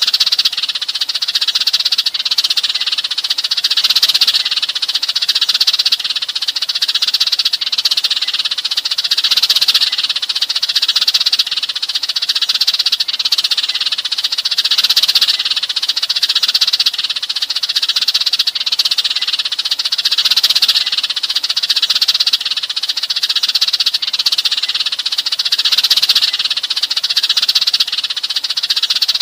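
A flock of Eurasian tree sparrows chirping and chattering continuously in a dense, unbroken chorus: the sparrows' flock-gathering call, played as a lure to draw other sparrows in.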